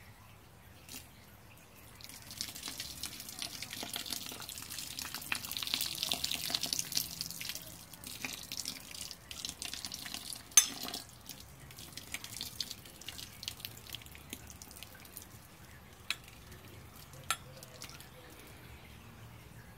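Hot sparge water poured from a glass measuring cup onto a spoon resting on the grain bed of a cooler mash tun, splashing and trickling into the mash. The pour runs strongest from about two to eight seconds in, then thins to drips, with a few sharp clinks along the way.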